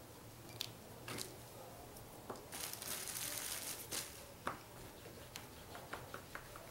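Light handling noises of clay crafting at a work board: scattered small taps and clicks, with a crinkling rustle for about a second and a half in the middle.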